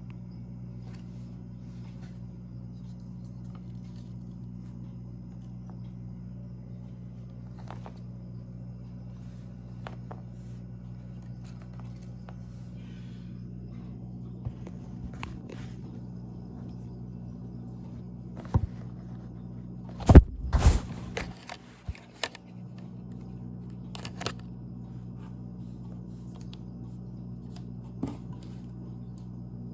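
Plastic mini tripod being handled and set down on a table: scattered clicks and knocks, with a sharp cluster of knocks about twenty seconds in, over a steady low hum.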